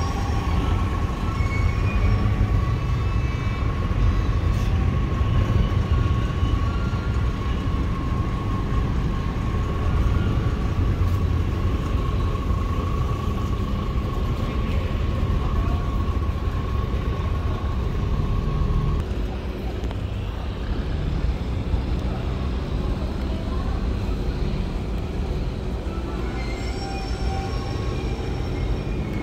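Diesel engine of a heavily laden cargo barge running as it passes close by: a steady low rumble with a steady high whine on top that stops about two-thirds of the way through.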